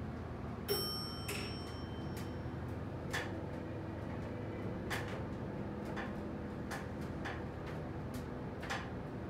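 Inside a hydraulic elevator car: a steady low hum with light, irregular clicks about once a second, and one sharper click followed by a brief high ring about a second in.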